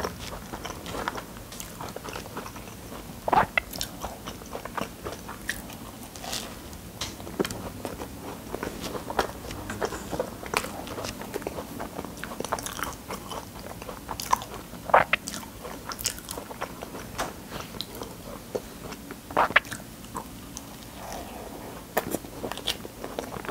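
Close-miked chewing of a sugar-coated pastry: crisp crunching bites and wet mouth sounds, with a few sharper crunches along the way. Near the end, fingers are licked clean.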